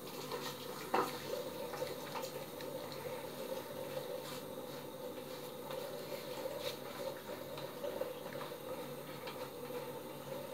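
Three-bladed cartridge razor scraping in short strokes through shaving gel on the scalp, over a steady hum, with one sharp tap about a second in.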